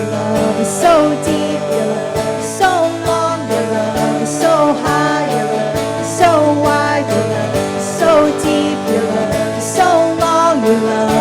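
Live worship band music with a steady beat, playing through a passage without sung words.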